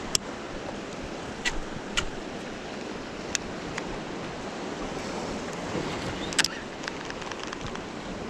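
Ocean surf washing against shore rocks, with wind on the microphone, and a scattering of sharp clicks. The loudest click comes about six seconds in, followed by a quick run of faint ticks.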